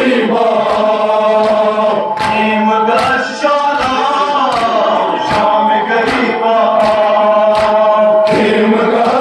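Men chanting a noha, a Shia mourning lament, in unison, the melody drawn out in long held and sliding notes. Under the voices runs a steady beat of sharp strikes, about two to three a second.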